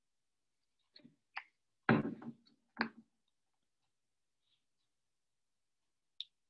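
A bottle of red craft paint being handled to dispense more paint: a few short clicks and knocks, the loudest two about two and three seconds in, and one more click near the end.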